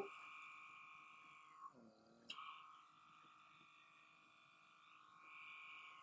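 Handheld pore vacuum (blackhead suction tool) running on its lowest setting, a faint steady high-pitched motor whine that briefly wavers and rises in pitch about two seconds in as the suction tip works over the skin.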